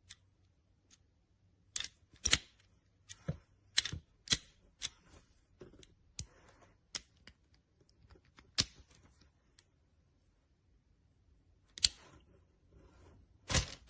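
Parts of a 1/4-inch drive socket set, small sockets and extensions, being handled: about a dozen sharp clicks and clinks at uneven intervals, with a pause of a couple of seconds near the end.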